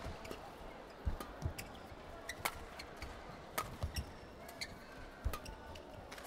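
Badminton rally: several sharp cracks of rackets striking the shuttlecock, about a second apart, with dull thumps of the players' feet landing on the court in between, over a faint murmur of the crowd.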